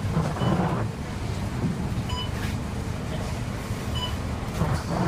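Scania K230UB single-deck bus's diesel engine running, with a steady hiss of wet road and rain. Short high beeps sound about every two seconds.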